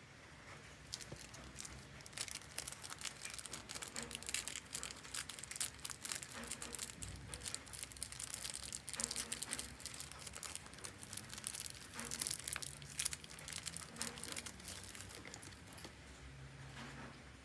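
Small clear plastic bag crinkling and crackling as fingers pick it open to free a tiny plastic accessory. The crackle is busiest through the middle and thins out near the end.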